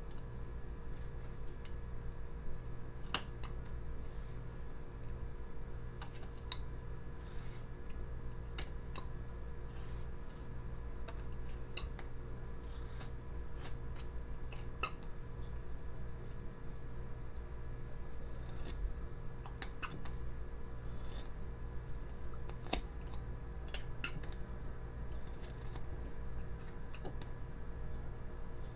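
Carving knife slicing shavings off a basswood figure in short, irregular strokes, each cut a brief crisp scrape. A low steady hum runs underneath.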